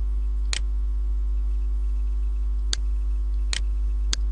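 Steady low electrical hum with four sharp computer mouse clicks spread through it.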